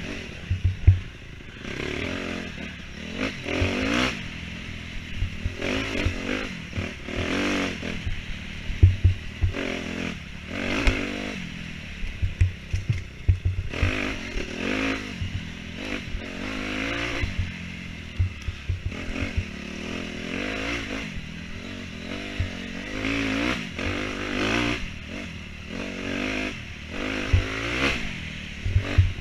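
Off-road dirt bike engine revving up and falling back again and again as the throttle is worked over rough ground, a surge every second or two. Scattered thumps and clattering run through it.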